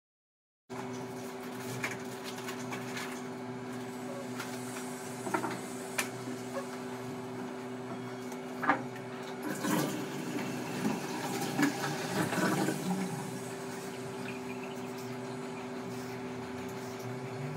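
A construction drill at work in the neighbouring building, running as a steady motor hum at an even pitch that starts just under a second in. Scattered clicks and clatter from kitchen work sit on top of it.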